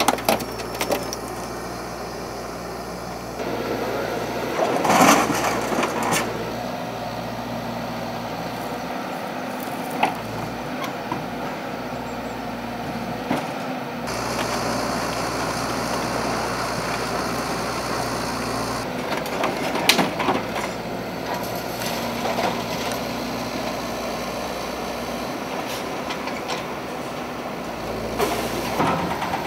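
Hydraulic excavator engine running while its demolition grab handles and crushes scrapped car wrecks, with sharp crunching and cracking of metal at intervals, loudest about five, ten and twenty seconds in.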